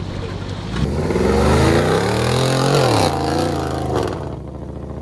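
Range Rover SUV's engine revving hard under load as it pushes through deep mud. The revs climb from about a second in, drop around the three-second mark, rise briefly again and ease off near the end.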